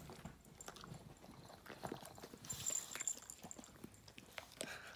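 A husky chewing a piece of sushi roll: faint, irregular wet clicks and smacks.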